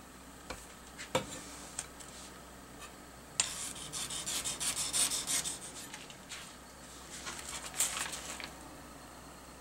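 Plastic film lid on a tofu tray being slit with a knife tip and peeled back: a few light clicks, then a crackling plastic rustle starting about three and a half seconds in, with a second burst later.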